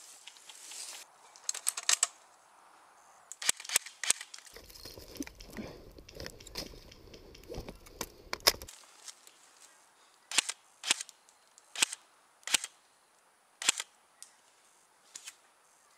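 Airsoft rifles firing single shots: a few around the start, then a run of about seven separate shots half a second to a second apart in the second half. A stretch of low rumble fills the middle.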